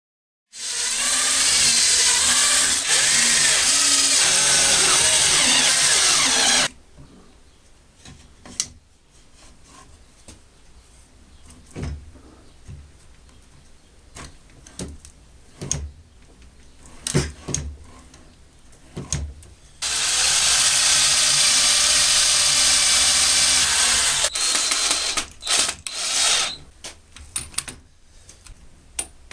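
An electric drill running flat out for about six seconds, its pitch wavering as it loads up. Then come scattered knocks and clatter, a second run of about four seconds, and several short bursts of the drill followed by more clicks.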